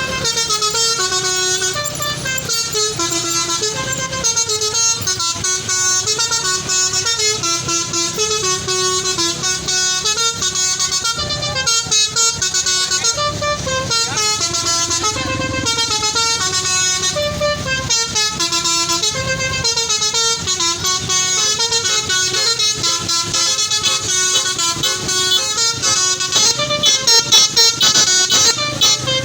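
Bus basuri (telolet) multi-tone horn playing a running melody, its notes stepping up and down one after another, over a low rumble of road noise.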